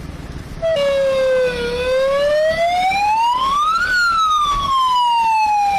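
Chandigarh police siren wailing, loud. It starts abruptly just under a second in, rises in pitch for about two seconds, then slowly falls. It is the signal to clear roads and parks and go indoors.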